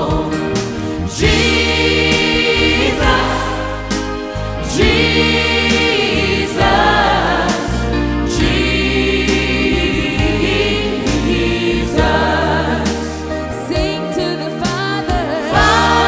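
Christian worship song: a choir singing long held notes over instrumental backing, with bass notes that change every second or two.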